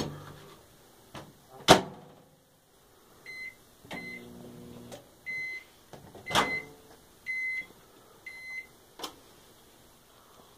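Microwave oven being worked: the door shut with a sharp clunk, then six short high keypad beeps, with a brief low hum about four seconds in and a few more knocks from handling.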